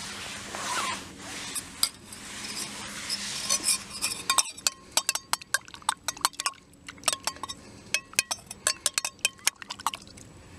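A spoon stirring in a metal camp cook cup. It starts with a few seconds of rustling and scraping, then turns into quick, ringing clinks of the spoon knocking against the cup's sides through the second half.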